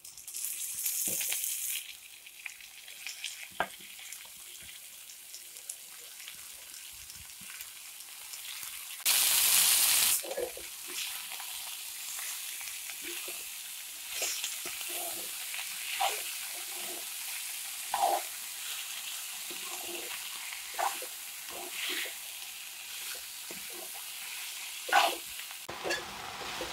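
Chopped banana flower sizzling in hot goat fat and spices in a wok, stirred with a metal spatula that scrapes and clicks against the pan again and again. A loud rush of noise lasts about a second around nine seconds in.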